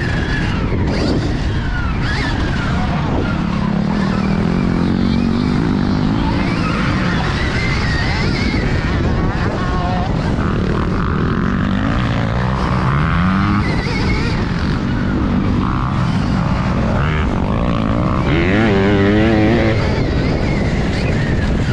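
A motor vehicle running continuously, its pitch gliding up and down, with a warbling, wobbling whine near the end.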